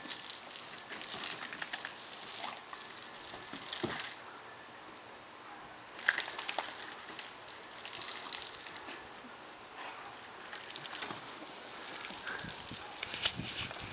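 Garden hose spray spattering and hissing onto a wet wooden deck, with irregular splashes as a Weimaraner jumps and snaps at the stream. The spray goes quieter for a couple of seconds midway, then comes back with a sharp splash.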